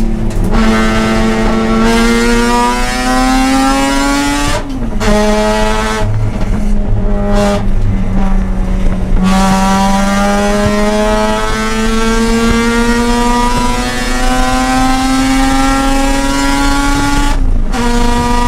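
Mazda RX-8's two-rotor rotary engine pulling hard on track, its pitch rising steadily through each gear. There is a gear change about four and a half seconds in, a few seconds of throttle lifts and lower, steadier pitch in the middle, then a long climb to another gear change near the end.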